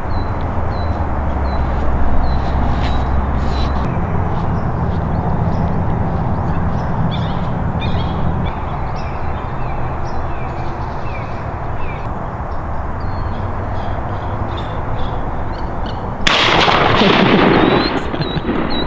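Steady outdoor rushing noise, then a sudden loud blast about sixteen seconds in: a shotgun shot finishing off a crippled wood duck.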